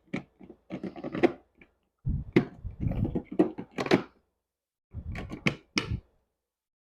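Handling noises: irregular clicks, knocks and rustles in three short clusters with pauses between, with no motor running.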